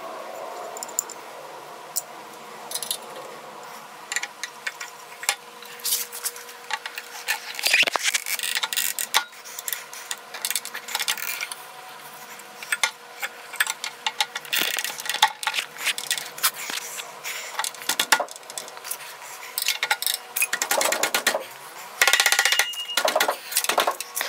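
Metal parts of a mini bike torque converter clinking, clicking and scraping as the pulleys and belt are handled and fitted onto the engine shaft, with a few short bursts of clattering.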